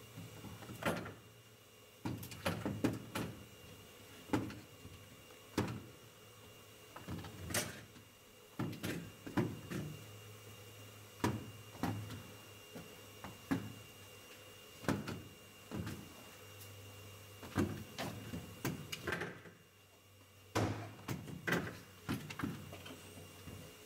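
Apples knocking and thudding as they are set by hand into the inclined lanes of an apple dispenser and roll against one another and the frame, in irregular knocks about once a second, over a faint steady hum.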